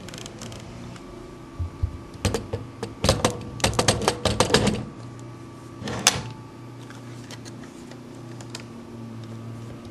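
A quick run of small sharp clicks and ticks from camera lens and adaptor hardware being handled and fitted, densest between about two and five seconds in, with one more click about six seconds in.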